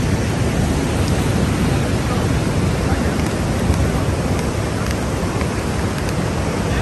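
Steady rushing of wind buffeting the microphone, with ocean surf beneath it.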